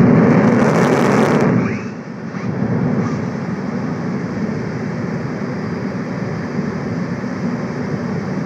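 F-15E Strike Eagle's twin jet engines heard from across the airfield, a loud surge of thrust in the first two seconds, then a steady rumble. The throttle is being pulsed to hold the jet against the pull of the arresting cable.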